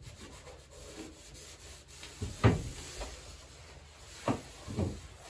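A cloth rubbing over the painted sheet-metal floor of a cargo van as it is wiped clean, broken by a few dull knocks on the floor, the loudest about halfway through.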